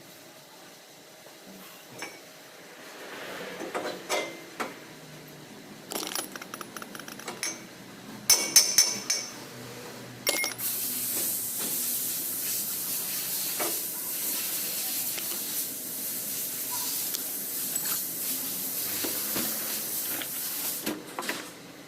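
Metal parts and tools clinking and clicking. About ten seconds in, a steady high hiss of something escaping under pressure starts, runs for about ten seconds and cuts off suddenly.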